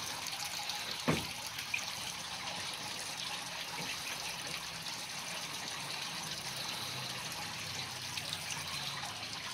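Steady hiss of running or falling water, with one short knock about a second in.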